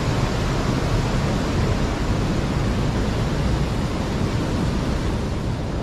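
Steady, even rushing noise of flowing stream water.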